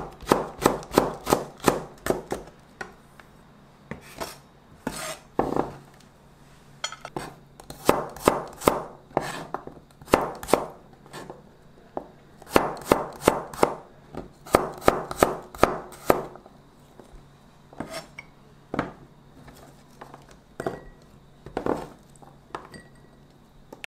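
Chef's knife slicing green chili peppers and then garlic cloves on a plastic cutting board: runs of sharp knocks of the blade on the board, about two or three a second, broken by short pauses.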